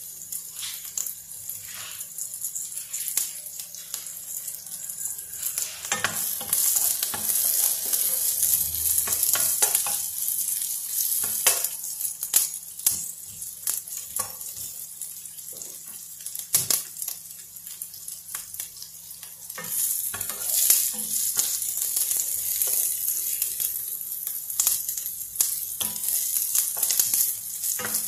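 Sliced onions sizzling in oil in a nonstick frying pan, with a wooden spoon scraping and tapping against the pan as they are stirred. The sizzle grows louder about six seconds in.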